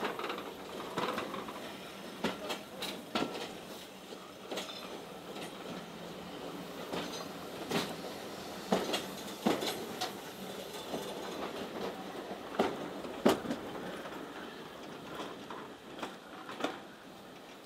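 Passenger coaches of a departing heritage train rolling past, with a steady rumble and sharp clicks at irregular intervals as the wheels pass over rail joints.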